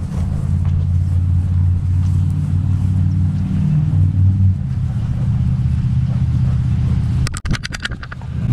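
Steady low rumble, with a quick run of sharp rattling clicks about seven seconds in.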